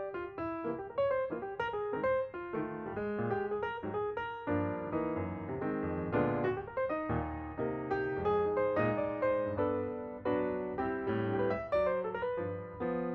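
Background piano music, notes played one after another in a gentle flowing pattern.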